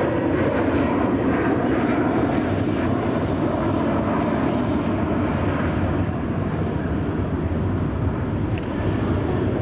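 Twin-engine Boeing 767 jet airliner climbing out after takeoff: a steady, low jet-engine rumble at takeoff thrust, easing off slightly in the second half as the aircraft draws away.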